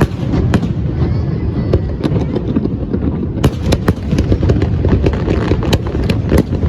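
Aerial fireworks display: many sharp bangs and crackles of bursting shells over a continuous low rumble. The bursts thin out about a second in and come thick and fast again from about three and a half seconds.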